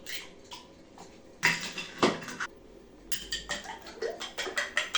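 A utensil clinking against a bowl: a few sharp knocks about a second and a half in, then quick, even strokes, about five a second, as eggs are beaten.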